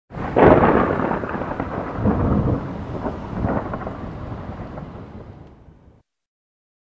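Thunder: a sudden loud crack just after the start, then a long rolling rumble that swells twice more, fades, and is cut off abruptly near the end.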